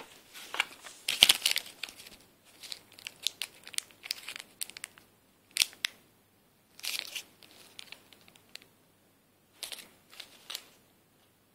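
Small clear plastic packets holding toy figures crinkling as they are picked up and handled, in short irregular bursts with pauses between.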